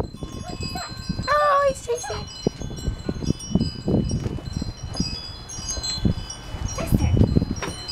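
Light, chime-like ringing tones at several scattered high pitches, over low rumbling and thumps. About a second in, a short, high, wavering whimper, from a four-week-old Siberian husky puppy.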